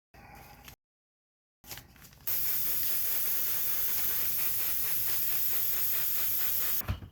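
Airbrush spraying paint in a steady, even hiss that starts about two seconds in and stops near the end, followed by a short knock.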